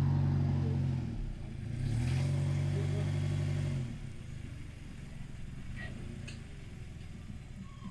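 Petrol Toyota Estima minivan's engine pulling under load as the van is manoeuvred into place. The engine note eases off about a second in, rises again, then drops away to a faint low running sound about four seconds in.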